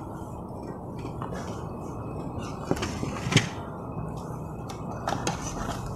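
A spoon clinking and scraping against a plate while eating: a few short clicks and knocks over a steady low background noise, the sharpest about three and a half seconds in.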